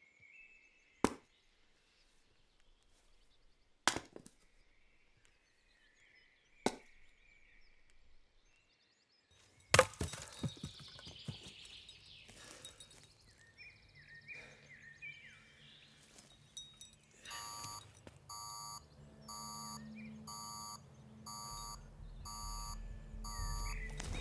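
An axe splitting firewood on a chopping block: three sharp chops about three seconds apart, then a louder split at about ten seconds followed by the rattle of falling pieces. From about two-thirds of the way in, an electronic beep repeats roughly once a second over a low drone.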